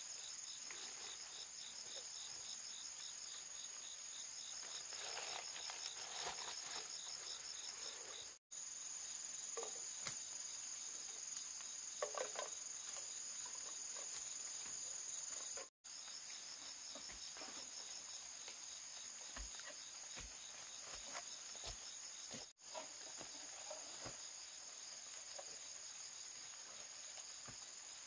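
Insects chirring: a steady high-pitched tone with a faster pulsing trill beneath it. It cuts out for an instant three times.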